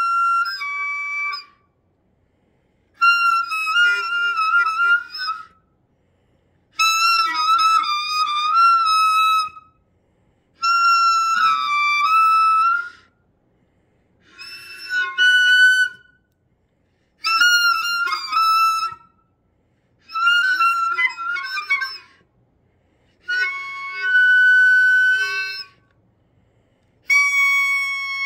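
Scuba gear giving off reedy, clarinet-like whistling tones in about nine separate bursts of two to three seconds each, with about a second of silence between them. The pitch steps up and down within each burst like a tune.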